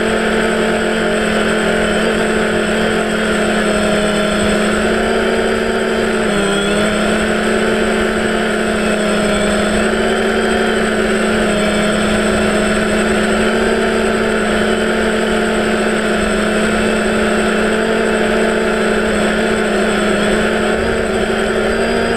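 Electric motors and propellers of a small camera drone humming steadily as it flies low, heard from its onboard camera, with a brief dip in pitch about six seconds in. Wind noise rumbles underneath.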